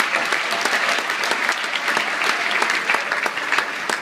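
Audience applauding in a large hall: a dense, steady clatter of many hands, with some sharp claps close by.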